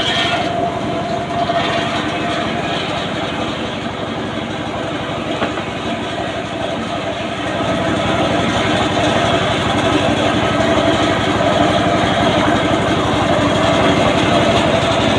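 Engine-driven circular saw of a mobile sawmill running steadily: a fast, even engine thrum under the blade's whine. A cut through an acacia log ends right at the start, with the high, hissing sound dropping away. The blade's tone grows stronger again past the halfway mark as the log is pushed through the saw once more.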